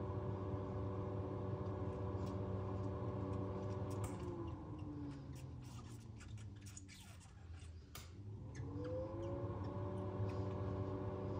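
Electric ventilation fan of a kitten incubator box humming steadily. About four seconds in it winds down in pitch and fades, then winds back up to speed near nine seconds. Faint clicks of a kitten suckling on a bottle come through while the hum is low.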